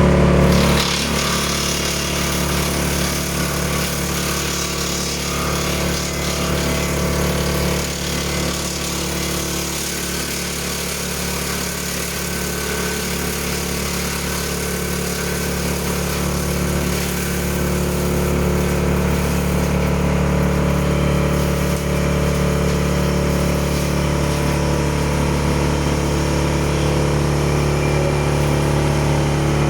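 FD216-2 wood chipper running steadily with a constant engine hum and hiss. It gets a little quieter about a second in, then slowly louder over the second half.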